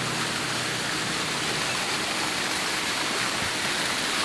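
Small mountain stream cascading over bare rock slabs, a steady rush of running and splashing water.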